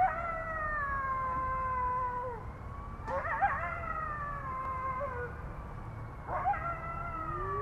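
Wolves howling in chorus, several howls overlapping. Each howl starts with a wavering rise and then holds a long, slowly falling note. New howls come in about three seconds in and again about six seconds in.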